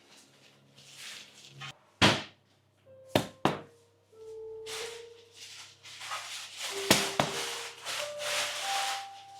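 Soft background music with a few held notes, broken by several sharp knocks: one about two seconds in, two quick ones a second later, and another pair near seven seconds.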